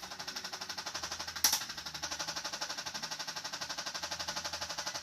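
A handheld electric percussion tool starts up and hammers in a rapid, even pulse on the patient's buttock muscle. A single sharper click comes about one and a half seconds in.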